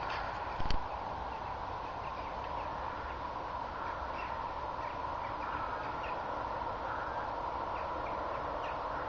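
Faint bird calls over a steady outdoor hiss, with one thump just under a second in.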